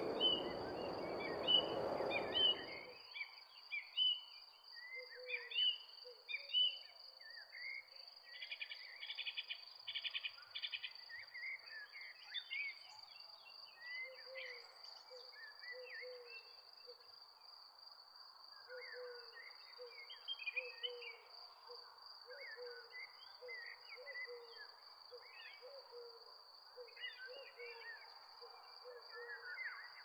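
Birdsong ambience: many small birds chirping and twittering, with a low short call repeated in runs beneath them and a steady high-pitched whine throughout. A rushing noise fills the first two seconds or so.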